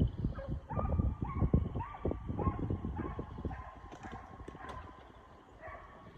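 Deer hounds baying as they run a deer: a run of short, rising-then-held calls about two a second that fade near the end, over low thumps and rumble.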